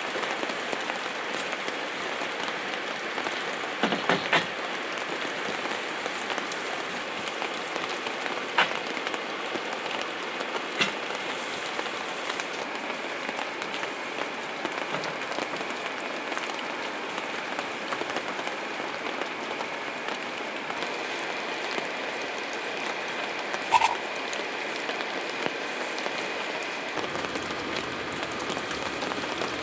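Steady rain falling, an even hiss of drops, with a few louder single taps scattered through it.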